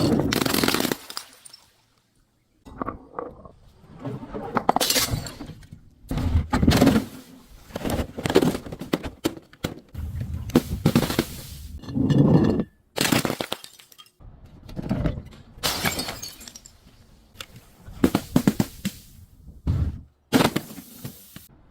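A string of crunching, cracking and shattering sounds: glass bottles and other brittle things being broken and crushed, one short bout after another, with abrupt cuts between them.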